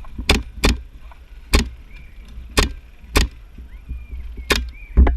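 Gas-blowback MP7 airsoft gun firing single shots: seven sharp cracks at an uneven pace, each with the snap of the blowback slide.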